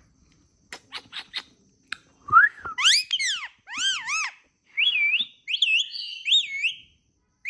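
Pet parrot making a few soft clicks, then a run of whistled calls, each one swooping up and down in pitch.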